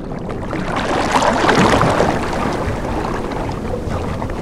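Ocean-wave sound effect: a steady wash of sloshing sea water that swells about a second and a half in, then eases.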